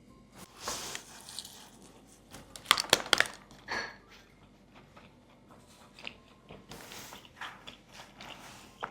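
Close-miked eating sounds: biting into and chewing bika ambon, a soft, spongy Indonesian cake, with a cluster of sharp crackles about three seconds in and softer moist chewing after.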